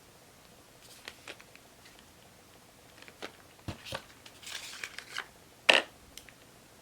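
Lipstick packaging being handled by hand: scattered light clicks and taps with a brief crinkle of paper or plastic, and one sharper, louder tap near the end.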